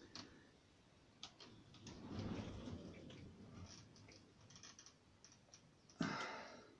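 Faint scattered clicks and soft rustling from hands working a glue gun and thread on a model ship's cloth sail, with one short louder rustle about six seconds in.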